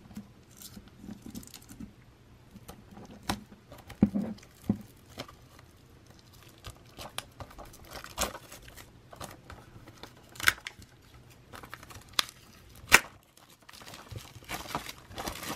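Plastic shrink wrap being picked at, torn and peeled off a Blu-ray case: scattered sharp crackles and small tears, then a denser run of crinkling near the end as the wrap comes away.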